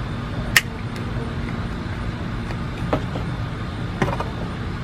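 Orange plastic Hot Wheels track pieces being handled, giving a few sharp clicks and knocks, the loudest about half a second in, over a steady low background rumble.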